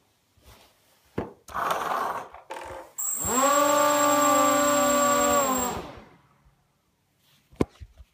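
Quadcopter's brushless electric motors spinning up, holding a steady pitched hum with a thin high tone above it for about two and a half seconds, then spinning down. A click and a short rustling noise come before, and a few sharp knocks near the end.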